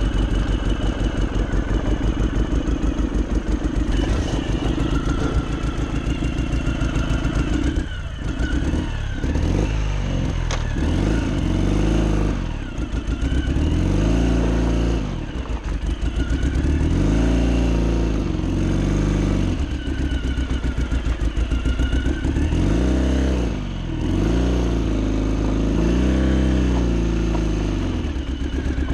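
Ural Gear Up's 750 cc air-cooled flat-twin engine pulling the sidecar rig along, its revs rising and falling again and again as the throttle is opened and closed.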